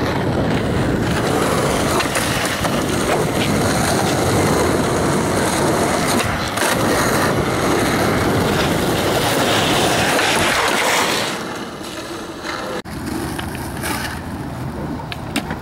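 Skateboard wheels rolling over rough pavement: a loud, steady rumble for about eleven seconds, then quieter rolling with a few sharp board clacks near the end.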